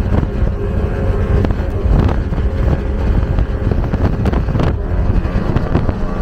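Outboard-powered speedboat running at high speed: a steady engine drone under wind buffeting the microphone and rushing water, with a few thumps as the hull hits the chop.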